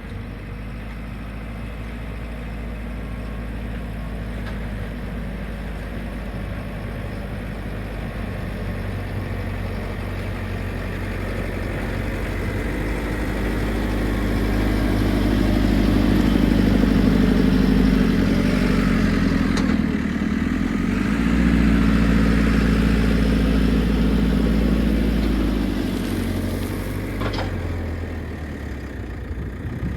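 JCB 4CX backhoe loader's diesel engine working under load as the front bucket pushes stone, building up to its loudest in the middle and easing back near the end.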